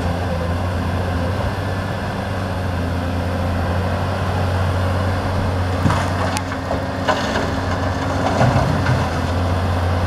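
Cat 320D excavator's diesel engine running steadily as it digs and lifts a bucket of rocky soil. A few sharp knocks and clatters of rock against the steel bucket come about six to seven seconds in.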